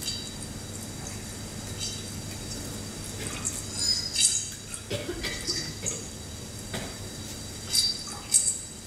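Sparse, irregular high-pitched clicks and clinks like water drops or glass, a few louder ones around the middle and near the end, over a faint steady low hum.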